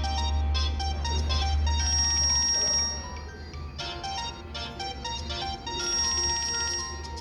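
Pantech C600 mobile phone ringtone: a synthesized polyphonic melody, its main phrase repeating about every four seconds.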